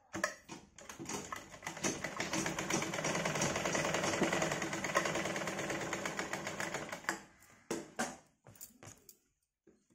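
Domestic sewing machine stitching darts into a blouse back piece. It runs steadily for about six seconds, then stops, and a few light clicks follow.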